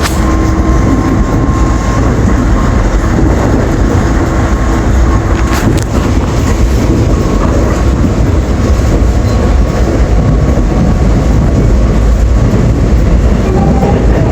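Commuter subway train running, heard from inside the car: a steady loud rumble with track noise and a faint steady whine, and one sharp click about six seconds in.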